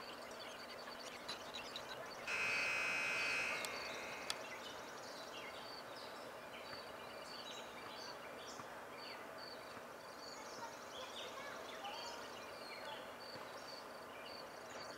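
Quiet evening outdoor ambience with small chirps repeating about twice a second. About two seconds in, a steady high-pitched tone sounds for about a second and is the loudest thing heard.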